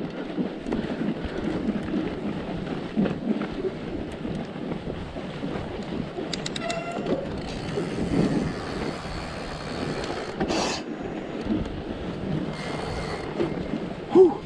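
Fat bike rolling along a snowy trail: a continuous rough rumble and rattle from the tyres and the bike. There is a brief louder sound near the end.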